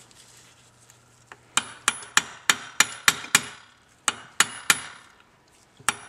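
Hand hammer striking steel in quick, sharp, ringing blows, about three a second, in two runs with a short pause and a single blow near the end. It is driving a pin out of an NV3500 manual transmission's shift mechanism. The strikes start about a second and a half in, after a quiet stretch.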